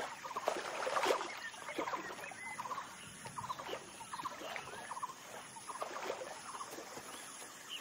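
A sambar stag wading through shallow water, its legs splashing, most strongly about a second in. Short chirping calls repeat throughout.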